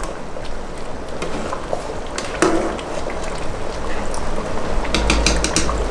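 A pot of thick stew with meat bubbling as it cooks down, with a few sharp knocks against the pot about two seconds in and again near the end.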